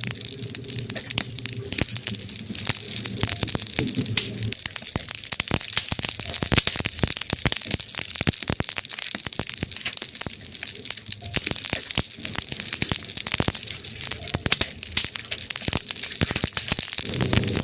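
Campfire burning, its wood crackling and popping irregularly over a steady hiss. A low steady hum sits under the fire for the first few seconds and returns near the end.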